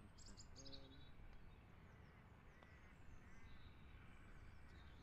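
Near silence: faint open-air ambience with a low rumble and a few distant bird chirps.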